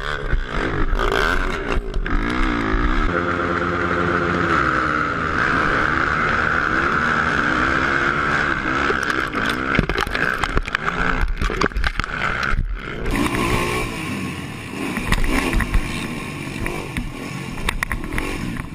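ATV (quad bike) engine running and revving, its pitch rising and falling. The engine sound changes abruptly about two-thirds of the way through.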